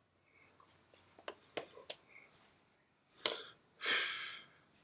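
A person breathing out while signing: a few soft mouth or hand clicks, then two breathy puffs of air, a short one about three seconds in and a longer sigh-like one just after.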